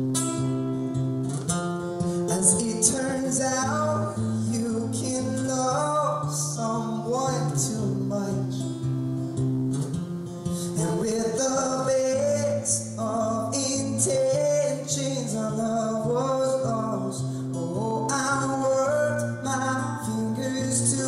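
A man singing a folk-style song while strumming an acoustic guitar, performed live.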